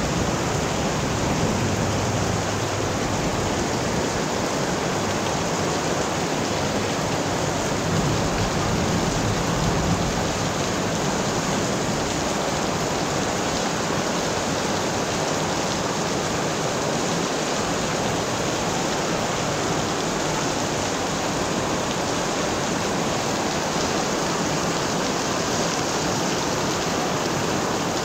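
Heavy rain pouring steadily, a dense, even hiss of a downpour that does not let up.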